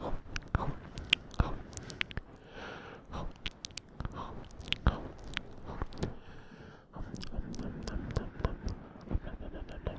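ASMR ear-eating mouth sounds: nibbling and chewing noises made close to the microphone, an irregular run of sharp wet clicks and smacks.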